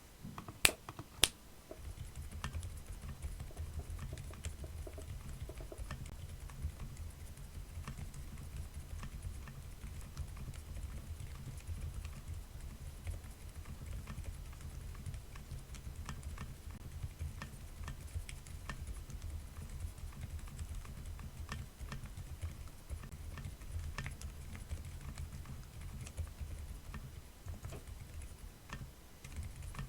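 Custom mechanical keyboard typed on steadily: an o-ring-mounted Oxymoron with an FR4 half plate, lubed and filmed JWK Ghost linear switches on 50 g long springs, and clip-in stabilizers. It opens with two sharp, louder clacks within the first second and a half, then a continuous run of keystrokes.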